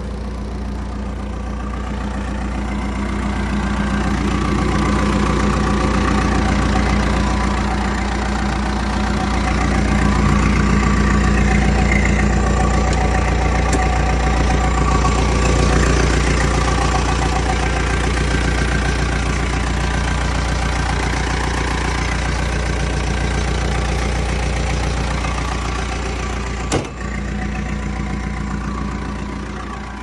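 2008 Caterpillar 420E backhoe loader's diesel engine idling steadily, growing louder a few seconds in and easing off near the end. A single sharp click sounds near the end.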